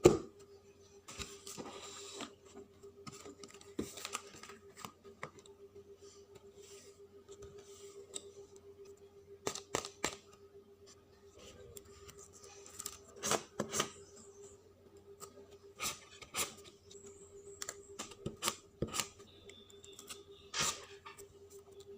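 Hands working on a paper journal page: scattered small clicks, snips and paper rustles at irregular intervals, the louder ones around the middle and near the end, over a faint steady hum.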